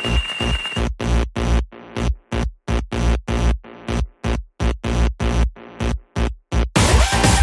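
Electronic dance music with a driving beat. About a second in it breaks into chopped, stuttering hits, about three or four a second, and the full track returns near the end.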